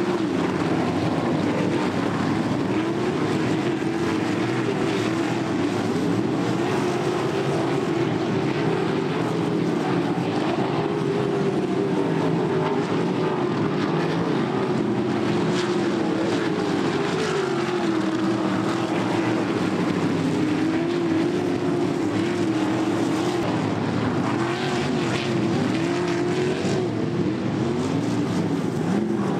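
Pack of winged dirt-track sprint cars racing, their V8 engines giving a continuous loud drone whose pitch rises and falls as they lap.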